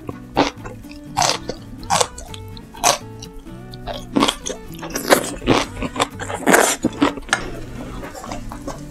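Crisp, crunchy bites and chewing of mustard-leaf (gat) kimchi stalks, a sharp crunch about every second, over soft background music. The crunching stops about a second before the end.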